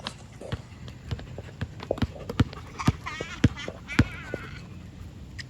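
A basketball being dribbled on an outdoor court, bouncing about twice a second, with the loudest bounces past the middle. Two short, high, wavering squeaks come in the middle of the dribbling.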